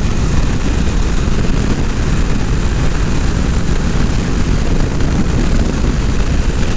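Motorcycle riding at road speed: a steady engine drone buried under heavy wind rush on the action camera's microphone.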